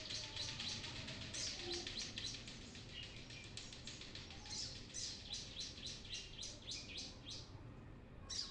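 Brown-throated sunbird (kolibri kelapa) singing energetically: a rapid, continuous run of short, sharp, high-pitched chirps, several a second.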